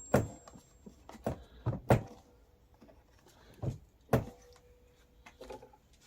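Hard plastic clicks and knocks as the speedometer dashboard of a kids' ride-on quad is pressed into place and clamped onto the plastic body. There are several sharp taps in the first two seconds, two more about four seconds in, and a softer rattle shortly after.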